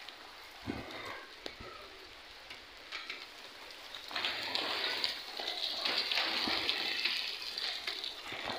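Rain pattering on a flat rooftop strewn with hailstones, with scattered ticks of drops, turning heavier about four seconds in.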